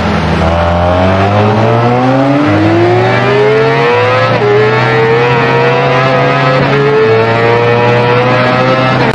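Motorcycle engine accelerating hard, its pitch climbing steadily and dropping briefly at two upshifts before rising again.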